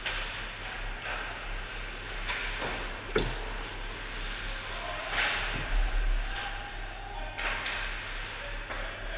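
Ice hockey play close to the goal: skates scraping the ice and sticks and puck clacking, with a sharp knock about three seconds in, the loudest sound, and a few more knocks later, over a steady low electrical hum.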